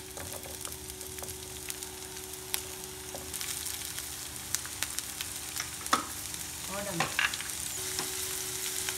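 Diced green capsicum and tomato sizzling in oil in a nonstick frying pan, with many small pops and crackles, while a slotted spatula stirs them.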